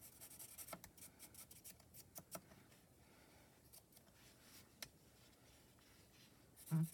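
Faint scratching and light clicks of a marker tip colouring small paper pieces on a glass mat, with a brief louder low sound just before the end.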